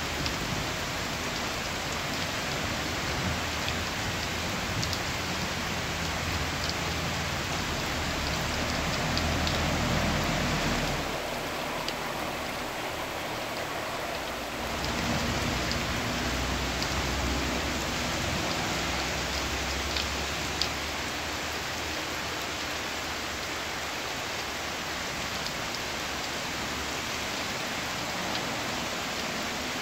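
Steady rain falling on dense broad-leaved tropical foliage, a continuous hiss with scattered close drops ticking on leaves. It eases slightly for a few seconds about eleven seconds in.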